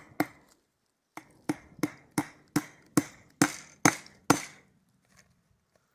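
Hammer blows on a wooden fence post, a steady run of about nine sharp strikes roughly two to three a second, as a barbed-wire fence is fixed to the post.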